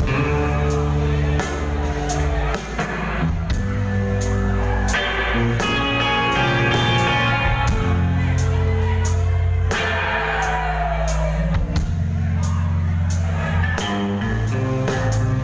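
Live band playing: electric guitars, drums and keyboard, with a steady beat.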